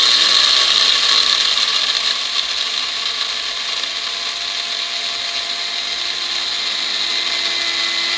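Krups F203 electric blade coffee grinder running steadily, its motor and spinning blade grinding a full 75 g load of coffee beans. The sound settles a little quieter over the first few seconds as the whole beans break down into coarse grounds.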